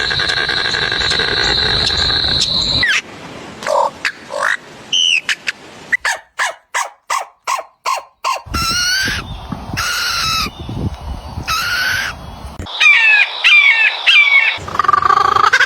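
A run of different animal calls in quick succession, one kind after another: a long held call, then short calls, a quick series of about six ticks a second in the middle, then more calls.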